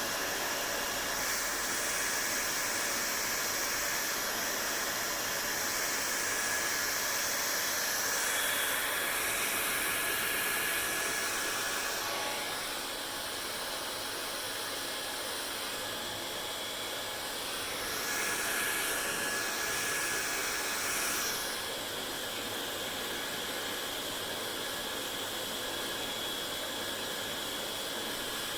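Hair dryer running steadily with a whooshing rush of air and a faint whine, its sound shifting a few times, about a third, two-fifths, three-fifths and three-quarters of the way through.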